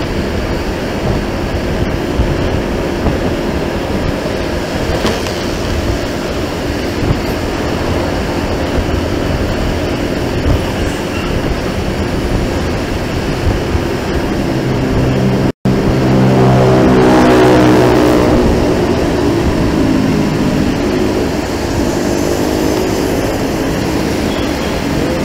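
Steady traffic and road noise, then about two-thirds of the way through a tourist bus's Basuri telolet air horn sounds loudly for about five seconds as a chord of several tones, with a brief dropout partway.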